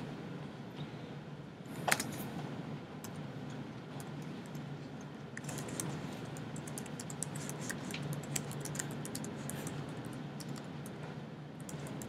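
Typing on a computer keyboard: irregular runs of key clicks, with one louder keystroke about two seconds in, over a low steady hum.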